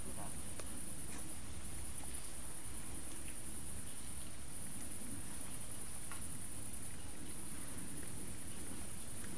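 Night crickets trilling in a steady, high-pitched chorus, with a low rumble underneath.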